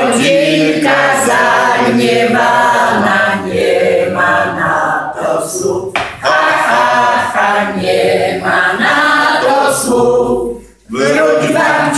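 A group of elderly men and women singing a Polish song together. There is a short break near the end, then the singing picks up again.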